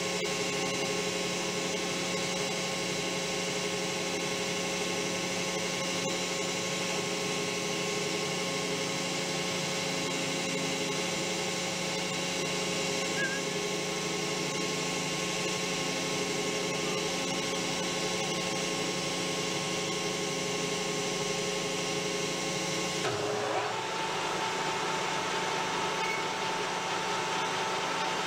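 Steady machine hum in a workshop; about 23 seconds in, the sound shifts with a short rising glide as a metal lathe's spindle starts up, settling into a steady whine of the spinning chuck.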